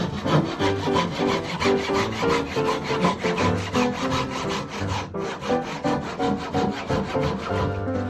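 Background music with changing notes, over wood being sawn.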